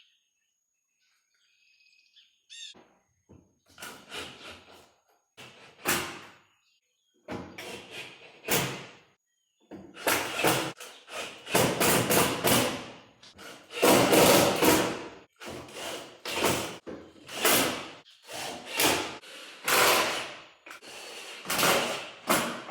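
A long series of loud knocks, bangs and scraping clatter from working on car body parts and hardware. They come sparsely at first and then in quick succession from about ten seconds in.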